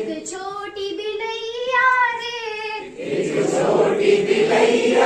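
A woman sings a line of a Hindi children's song alone in a high, clear voice, then about three seconds in a group of adults sings it back together.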